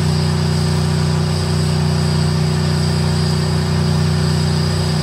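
Tank engine idling steadily: a loud, even, low drone with a thin high whine above it, holding the same pitch throughout.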